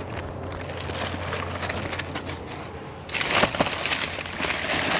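Plastic bin bags and food packaging rustling and crinkling as hands rummage through a supermarket waste container. It gets louder and busier from about three seconds in, over a low steady hum.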